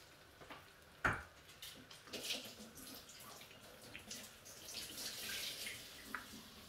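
Cheese doughnuts shallow-frying in a pan of hot oil, the oil sizzling and crackling, louder a few seconds in. A single sharp knock about a second in.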